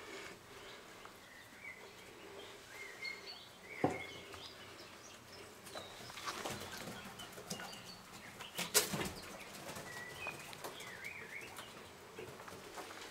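Young quails peeping with faint, short, high chirps, over rustling, with two louder knocks or flutters, about four seconds in and again near nine seconds.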